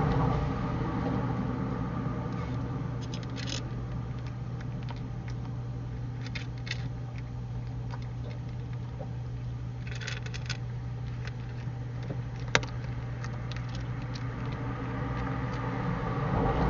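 A few short bursts of crisp crunching clicks over a steady low hum: a stray cat chewing dry kibble. A single sharp click comes near the end.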